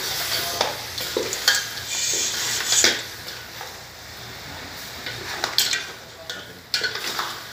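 A wooden spatula stirring and scraping chunks of boiled goat meat around an aluminium pot, with the meat sizzling against the hot bottom and occasional knocks against the pot.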